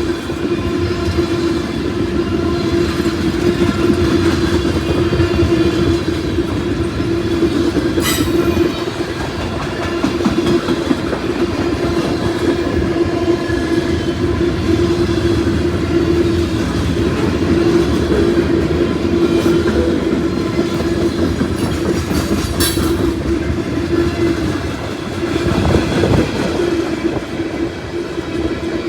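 Freight cars of a long freight train rolling past, their wheels clattering steadily over the rails, with a steady hum underneath. There are sharp clanks about eight seconds in and again about twenty-two seconds in.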